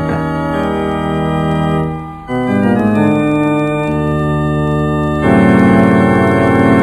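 Background music of slow, held chords, changing about two seconds in and again about five seconds in, where it grows louder.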